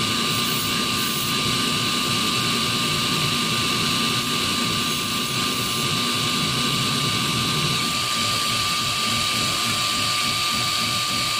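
Electric grinder's stone wheel spinning steadily with a high whine while the tip of a 1 mm twist drill bit is held against it and ground. The grinding stops about eight seconds in as the bit is lifted away, and the motor keeps running freely.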